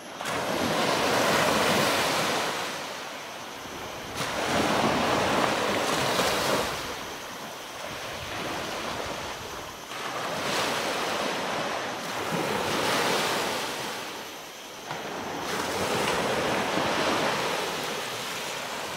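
Small waves breaking and washing up a shallow sandy beach, the rush of water swelling and fading every few seconds.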